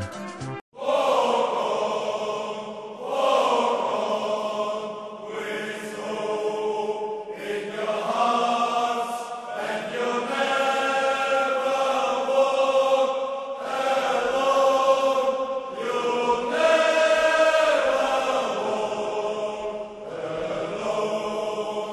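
A group of voices singing together in long held notes, phrase after phrase, with no bass underneath. The sound cuts out briefly just under a second in before the singing starts.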